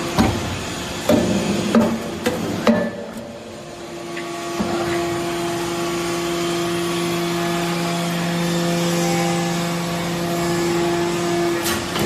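Hydraulic metal-chip briquetting press at work. A few sharp metal clanks come in the first three seconds. From about four seconds in, a steady hydraulic hum holds while the ram presses the chips, and another clank comes near the end.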